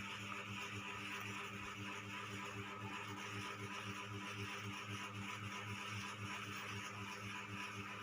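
A small motor humming steadily with a fast, even pulse, over a steady hiss.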